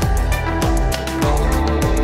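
Background music with a steady beat of about two drum hits a second over sustained notes.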